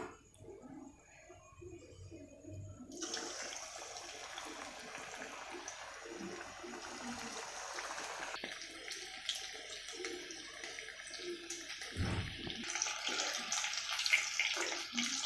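Marinated chicken pieces sizzling as they deep-fry in hot oil in a kadai: a steady hiss starts suddenly a few seconds in after a quiet start, with crackling and popping growing denser toward the end. A dull thump about three-quarters of the way through.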